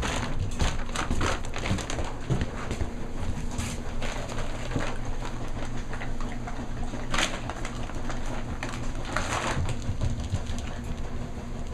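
German Shepherd puppies scuffling and playing, with scattered knocks and rustles and a couple of louder rustling bursts, over the steady low hum of a washing machine running.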